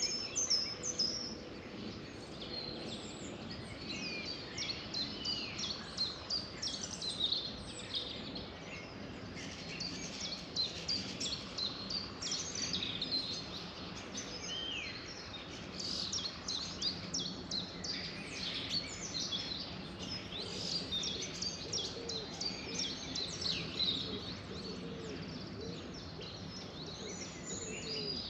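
Dawn-chorus-like bird song: many birds chirping and whistling at once, a continual overlapping stream of short high calls and quick falling notes over a steady background hiss.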